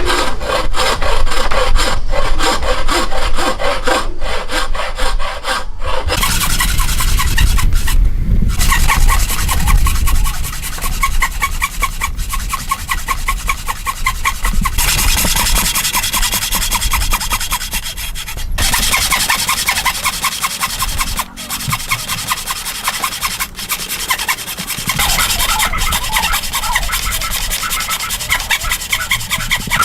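Wood being worked by hand: a tool rubs across the wood in quick, steadily repeated strokes, with a few short pauses.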